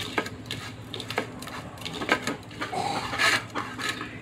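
A hand scooping and scraping dry feed grains (broken rice and layer feed) against bowls and a china plate: irregular scrapes, rubs and light clicks.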